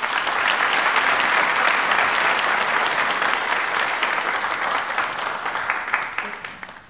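Audience applauding, a dense patter of many hands that tails off near the end.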